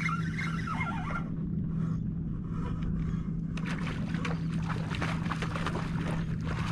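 A hooked fish splashing and thrashing at the water's surface from about halfway through, over a steady low hum.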